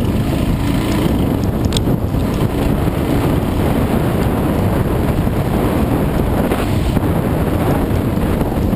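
Dirt bike engine running at speed along a trail, under heavy wind buffeting on the helmet camera's microphone. A couple of sharp clicks come about two seconds in.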